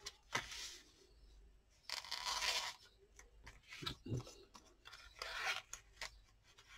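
Paper and cardstock being handled: a few short bouts of rustling and sliding, the longest about two seconds in, with small taps and clicks between them.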